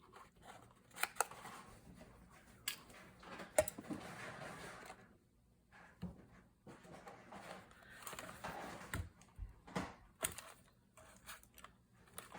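Faint scattered clicks and taps with stretches of soft rustling: paper folders and small crafting tools being handled.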